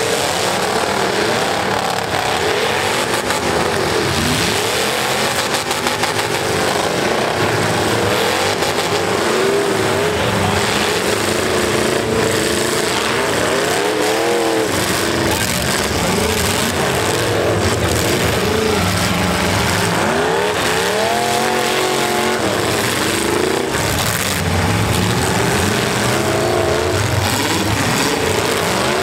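Several demolition-derby trucks' engines revving hard at once, their pitch rising and falling as they overlap.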